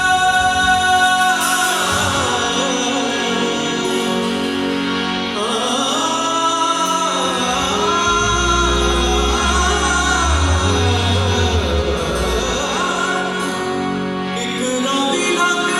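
Live music: a singer performing a folk song with band backing, the sung line wavering and ornamented, with deep bass notes entering for a few seconds in the middle.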